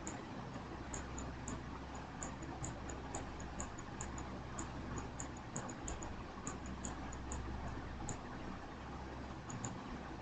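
Light, sharp clicks of a computer mouse, irregular and often in quick pairs, a few a second. A faint steady hiss and low hum lie underneath.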